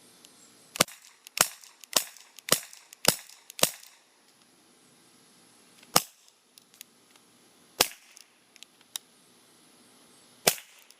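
WinGun M704 CO2 airsoft revolver firing: a quick string of six sharp shots about half a second apart, then three more spaced a couple of seconds apart, with fainter clicks between them. The shots are pretty dang loud.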